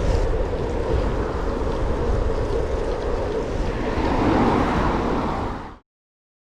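Wind rushing and buffeting over a GoPro's microphone on a moving bicycle, a steady rumbling noise that cuts off to silence nearly six seconds in.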